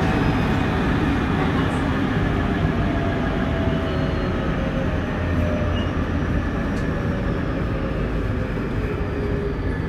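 Tobu 30000 series electric train running, its Hitachi IGBT-VVVF inverter giving thin whining tones that fall slowly in pitch over the steady rumble of wheels on rail, as the train slows.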